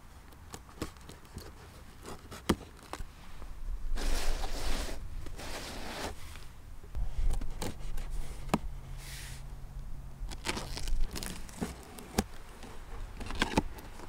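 A knife slicing the packing tape on a cardboard box, with scraping, clicks and tearing of tape and cardboard in several bursts, the loudest about four seconds in.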